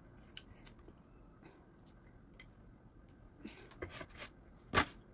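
Soft mouth sounds of someone eating shrimp: faint wet chewing, squishes and small clicks, with one short louder mouth sound near the end.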